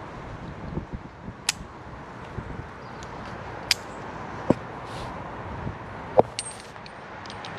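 Metal climbing hardware on a tree-climbing harness, carabiners and a zigzag friction device, clicking and clinking as the ropes are handled and clipped. A handful of sharp metallic clicks are spread through, several in quick succession near the end, over a steady background hiss.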